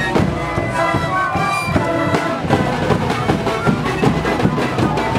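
A street band of Andean panpipes (sikus) and drums playing. Many panpipes blow short, overlapping notes over a dense, steady beat of bass drums, snare drums and large frame drums.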